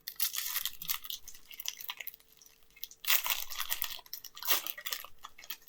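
Foil Pokémon trading-card booster pack being torn open and crinkled. It comes as crackling bursts of tearing and rustling: one at the start and two more about three and four and a half seconds in.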